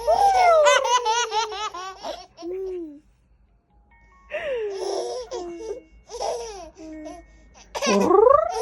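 Eleven-month-old baby laughing in quick, high-pitched runs of giggles. There is a short pause about three seconds in, then more laughter, with a rising burst near the end.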